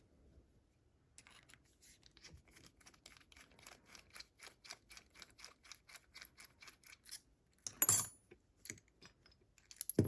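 Small sharp metallic clicks in an even run of about four or five a second from a just-picked padlock being worked on for disassembly, followed by a louder knock near the end.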